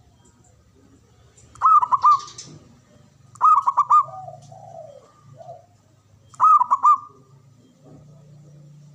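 Zebra dove (perkutut) cooing. There are three loud phrases, each a quick run of about four notes, about 1.5 s, 3.5 s and 6.5 s in, with softer, lower coos between them.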